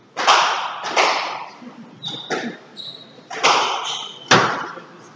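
Squash rally: the ball is struck hard about six times, racket hits and wall hits, each crack echoing around the enclosed court. Short high squeaks from the players' shoes on the wooden floor fall between the shots.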